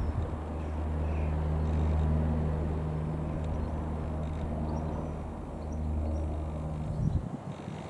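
Single piston engine of a Robin R3000/140 light aircraft running with a steady low drone, which drops away near the end.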